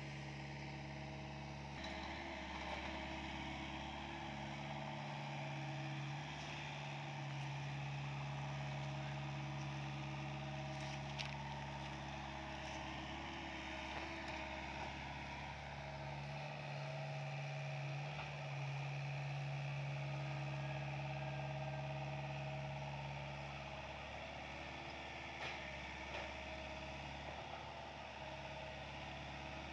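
SDLG mini excavator's diesel engine running steadily while it digs, its note swelling and easing with the load, with a few faint knocks.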